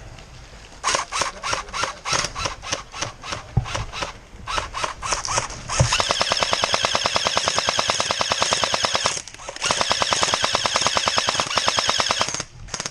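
Airsoft guns firing: for about five seconds, a run of single shots in quick succession, then long full-auto bursts with a short pause about nine seconds in.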